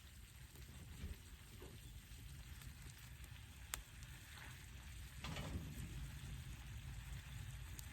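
Faint sizzling and crackling from food cooking over a fire pit, with a sharp click a little before the middle and a louder crackle about five seconds in.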